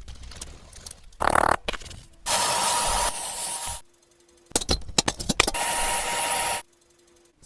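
A series of short, abruptly cut bursts of scraping noise from restoration work, with a cluster of sharp clicks about halfway through.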